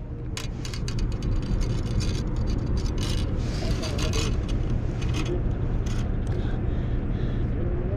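Hands unhooking a skipjack herring from a small lure: scattered clicks and rubbing of hook and fish, over a steady low rumble.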